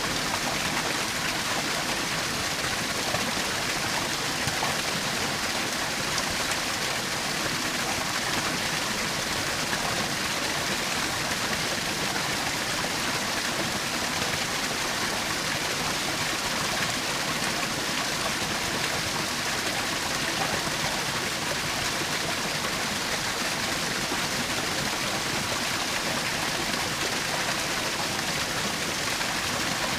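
Small waterfall splashing and rushing steadily, a constant bright hiss of falling water.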